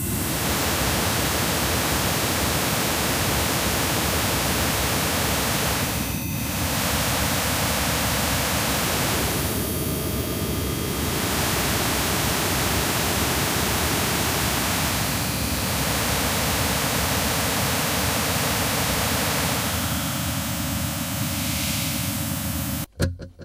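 Harsh industrial noise music: a dense, steady wall of static hiss across the whole range, its tone shifting every few seconds as parts are filtered in and out. It cuts off abruptly near the end.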